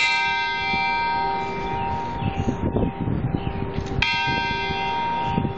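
Large cast tower bell, the newly unveiled Gardner bell, struck twice about four seconds apart. Each stroke rings on with a long, slowly fading chord of overtones.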